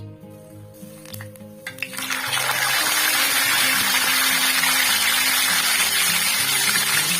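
Background acoustic guitar music. A couple of clicks, then about two seconds in a loud steady kitchen hiss starts and holds over the music.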